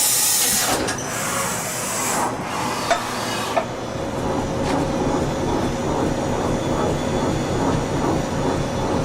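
Okuma Howa Millac 438V CNC vertical machining center running a program with no tools: axis drives and slow spindle running steadily with a rumble and a faint steady whine. There are bursts of hissing and a couple of sharp clicks in the first few seconds.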